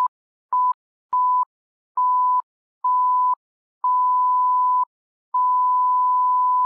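Film countdown leader beeps: seven beeps on one steady pitch, each longer than the one before, the last held about a second and a half.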